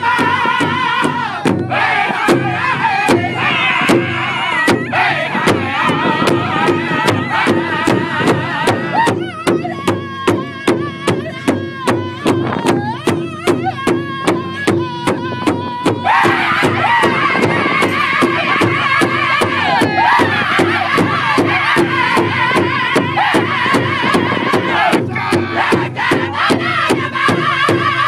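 A powwow drum group singing high-pitched in unison while beating a large shared drum with drumsticks in a steady, even beat. About nine seconds in the singing thins and the drumbeats stand out, and at about sixteen seconds the full group comes back in loudly.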